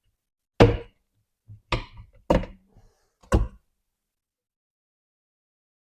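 Four sharp knocks, with a few lighter taps between them, from tire spoons and a motorcycle tire being worked against the wheel rim to lever a sticky tire off.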